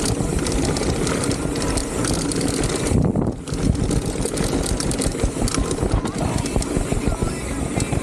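Salsa Cassidy mountain bike descending a rough trail at speed: wind rushing over the camera microphone, with tyres and frame clattering over the ground and a brief lull about three seconds in.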